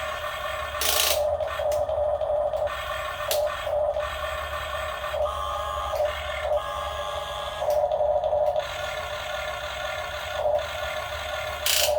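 Radio-controlled model excavator's motor and hydraulic pump running with a steady electric whine that swells in loudness now and then as it works, with a few short sharp clicks.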